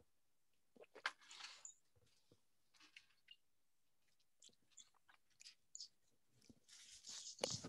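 Near silence broken by faint scattered clicks and a few short rustling noises close to the microphone, the loudest about a second in and near the end.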